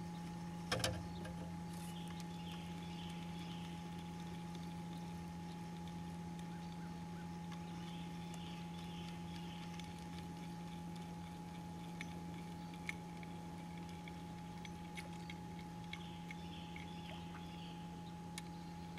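Steady electric hum, typical of an electric trolling motor moving a fishing boat slowly while longlining for crappie, with a knock about a second in and scattered light clicks from handling the rods and gear.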